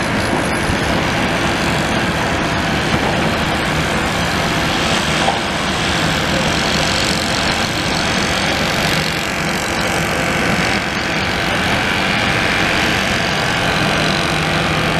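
Steady engine noise mixed with a constant hiss of rain and wind on the microphone.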